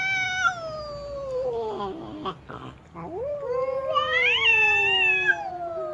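Female cat caterwauling: a long drawn-out wail that slides down and fades about two seconds in, then, after a short break, a second wail that rises, peaks and slowly falls.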